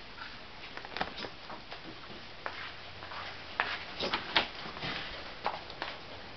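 Dogs' claws clicking and tapping irregularly on a hard terrazzo floor as several dogs move about, with a cluster of louder knocks about four seconds in.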